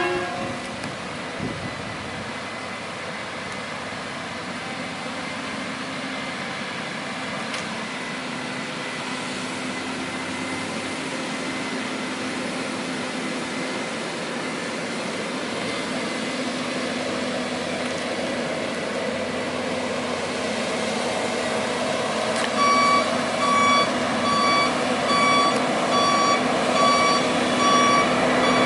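Heavy truck diesel engines running steadily and growing louder. In the last quarter a truck's reversing alarm starts beeping, about once a second, as the empty Mitsubishi Fuso logging truck backs up.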